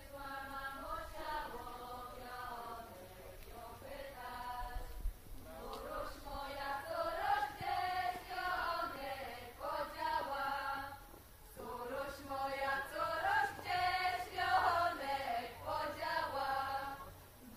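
Women's vocal group singing a folk-style song, several voices together, in phrases with short breaks between them.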